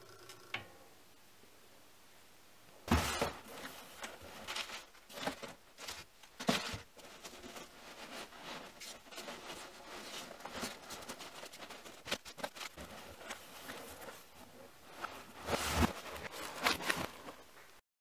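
Hands rummaging through loose packing peanuts in a cardboard box: rustling with irregular clicks and knocks, some louder, as a sheet-metal plate is handled among them. It starts about three seconds in after a quiet stretch with a single click.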